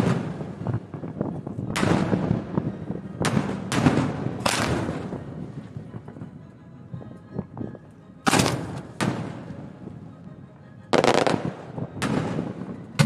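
Aerial fireworks shells firing from mortars and bursting at close range: about nine sharp booms at uneven intervals, each trailing off, with wind noise on the microphone underneath.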